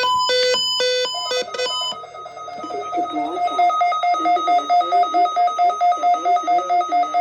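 Weather radio alert alarm set off by the weekly Environment Canada test: a few short electronic beeps of changing pitch, then from about a second in a rapid two-tone pulsing alarm at about four beeps a second.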